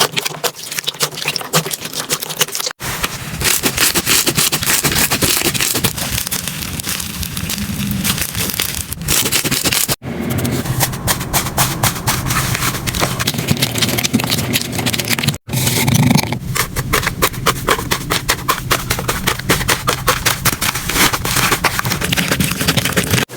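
Slime being squeezed, pressed and poked by hand, played back sped up: dense crackling and popping clicks. The sound breaks off abruptly three times where one clip cuts to the next.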